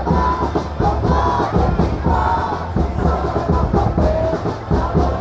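Large crowd of Vietnamese football supporters chanting and singing along to music with a beat.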